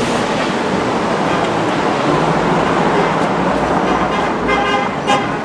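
Steady road traffic noise, with two short toots near the end.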